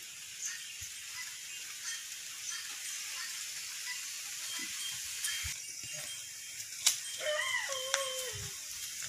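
A short whining animal call, sliding down in pitch about seven seconds in, over a steady high hiss with scattered faint clicks.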